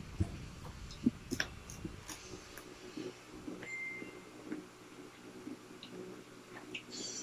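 Close-up eating sounds of two people eating with their hands: chewing and mouth noises with a few sharp clicks of fingers and food against a plate, over a faint steady hum. A brief high beep sounds about halfway through.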